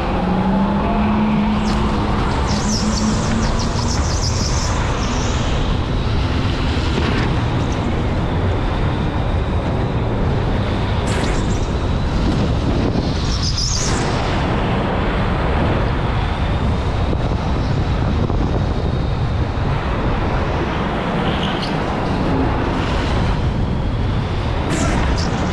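Electric go-kart driving on an indoor track: a steady rumble of tyres and rushing air, with a few brief high squeals.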